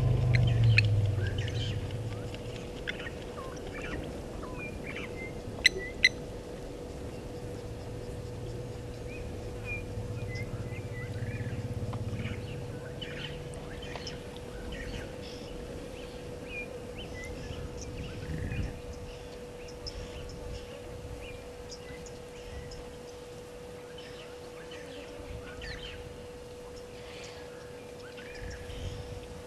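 Birds calling in short, scattered chirps over a steady faint hum, with a low rumble in the first couple of seconds and again around ten seconds in. Two sharp clicks come close together about six seconds in.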